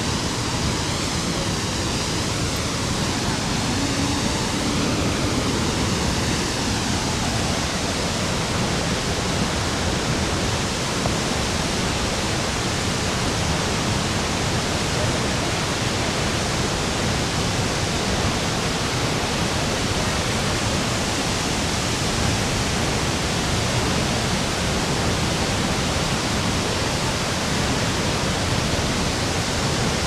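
Large waterfall plunging into its pool: a steady, loud rush of falling water.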